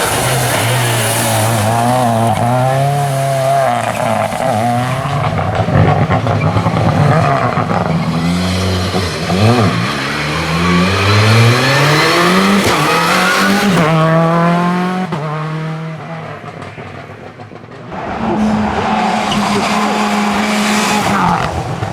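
Seat Córdoba WRC rally car's turbocharged four-cylinder engine revving hard, its pitch climbing and dropping again and again with the gear changes. The sound fades away about sixteen seconds in, then comes back suddenly, loud and steady, about eighteen seconds in.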